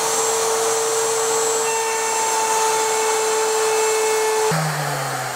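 Electric router running at full speed with a steady high whine, making a short test pass to trim the laminate edge of a countertop. About four and a half seconds in it is switched off and its pitch drops as it winds down.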